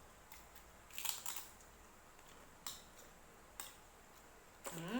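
A few faint sharp clicks and taps: a small cluster about a second in and two single ones later, followed by a short rising voice sound near the end.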